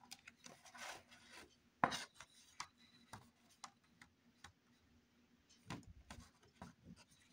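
Faint rubbing and scraping of paper and a pencil being handled on a desk, with a few light taps and short scratchy strokes.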